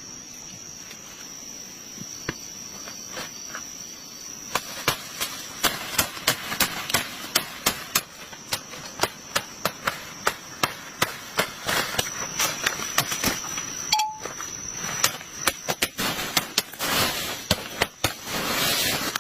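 Rhythmic sharp strikes, about two a second, beginning a few seconds in, giving way near the end to rougher scraping and rustling noise. Under them runs a steady high-pitched drone of insects.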